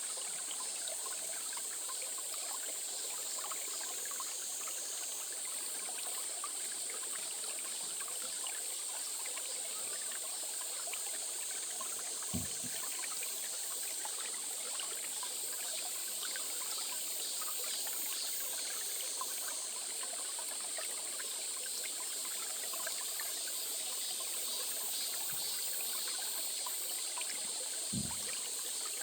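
A small stream trickling and running steadily over stones, with a steady high hiss above it. Two brief low thumps come about twelve seconds in and again near the end.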